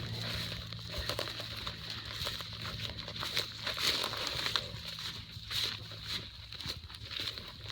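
Footsteps and rustling while walking over rough ground, an irregular crinkling and crunching with no steady rhythm.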